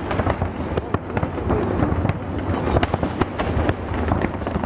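Fireworks display: a rapid, unbroken barrage of bangs and crackles from aerial shells and ground fountains, over a steady low rumble.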